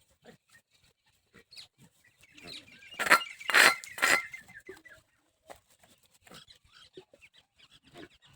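A farm animal calls loudly for about a second, around three seconds in, amid scattered short knocks and clicks.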